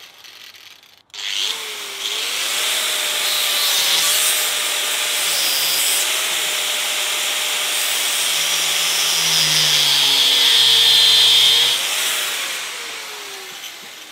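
Angle grinder with a slitting disc cutting into the Barronium composite-armoured bar of a Litelok X1 Moto D-lock: starts about a second in with a steady harsh grinding and a motor whine that wavers as the cut loads it, then trails off over the last two seconds. The armour resists the cut and wears the disc down.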